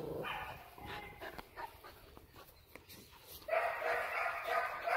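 Dog whining: a few short pitched cries at the start, then a longer run of high whining from about three and a half seconds in.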